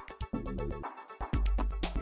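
Instrumental background music with a steady beat and bass.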